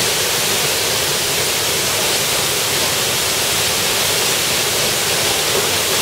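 Waterfall crashing down a rock face into a pool: a steady, loud rush of water.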